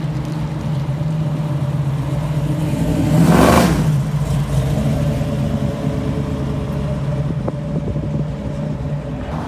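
Red second-generation Chevrolet Camaro driving past on the street, its engine rumbling steadily. The rumble is loudest as the car passes close about three and a half seconds in, then eases as it drives away.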